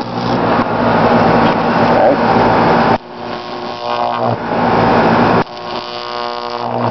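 High-voltage arc from a pole-pig distribution transformer burning at an old wire-wound resistor: a loud, harsh mains buzz. It breaks off suddenly about three seconds in and again about two and a half seconds later, striking back up each time.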